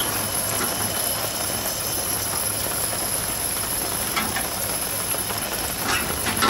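Old Coleman liquid-fuel two-burner camp stove running with both burners lit, giving a steady hiss, with rain falling around it.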